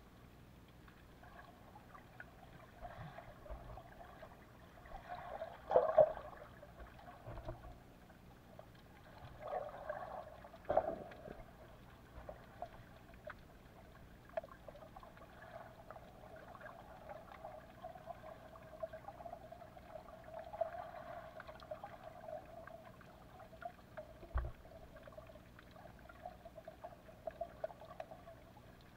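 Muffled underwater sound of shallow sea water heard through a submerged camera: a steady watery crackle and swish, with louder sloshing surges about 6 and 11 seconds in.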